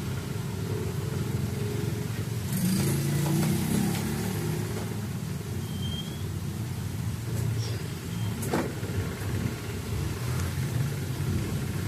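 A steady low rumble of background noise that swells a few seconds in, with one sharp click about eight and a half seconds in.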